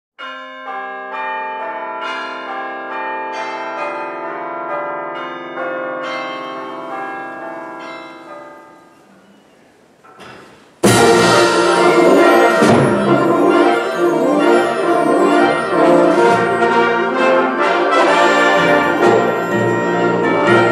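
Bell tones struck one after another, ringing and dying away. About halfway through, a full symphonic band comes in suddenly and plays loudly, with brass to the fore.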